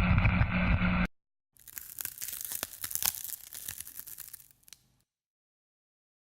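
A steady hiss with a low hum cuts off about a second in; after a short gap comes about three seconds of dense, crisp crackling and crinkling, like something being crumpled or torn, which then stops.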